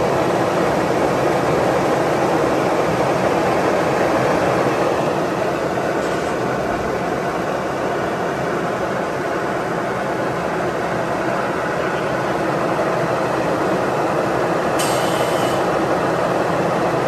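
Steady, loud running noise of PVC pipe extrusion line machinery on the factory floor, with a short hiss about fifteen seconds in.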